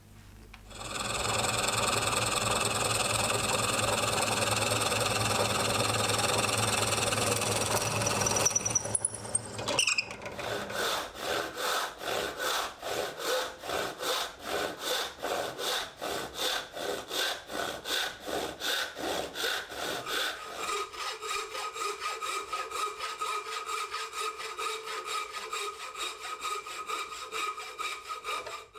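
A motor runs steadily for the first several seconds, then winds down with a falling whine. A handsaw then cuts wood in regular back-and-forth strokes, and about two-thirds of the way through a wooden-framed bow saw takes over with closer-spaced strokes.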